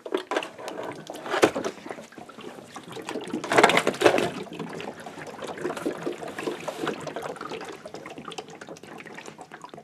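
Water gurgling and splashing out of the Vornado Evap40 humidifier's tanks as they are tipped into its base to fill it; loudest about three and a half seconds in, then tapering to a lighter trickle.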